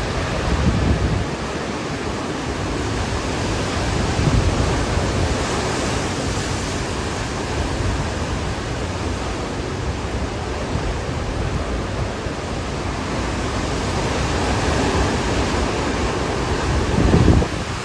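Hurricane Ian's wind and rain making a steady rushing noise, with gusts buffeting the microphone a few times, the strongest near the end.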